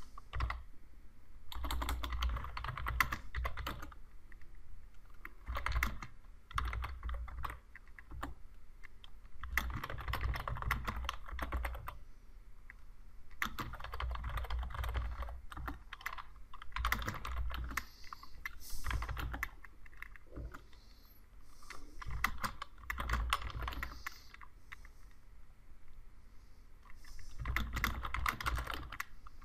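Typing on a computer keyboard: quick runs of key clicks in groups lasting one to several seconds, broken by short pauses.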